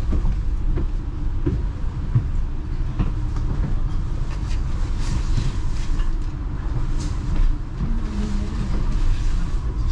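Cabin noise on the upper deck of a moving double-decker bus: a steady low engine and road rumble with scattered rattles and knocks from the bodywork.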